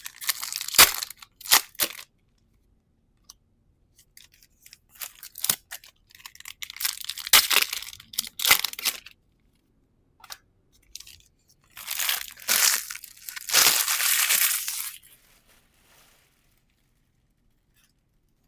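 Foil trading-card booster pack wrappers being torn open and crinkled, in three bouts of crackling with short pauses between.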